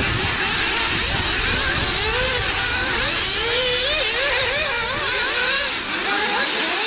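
Several nitro RC cars' small two-stroke glow-fuel engines running at high revs on the track, their overlapping whines rising and falling again and again as they accelerate and back off through the corners.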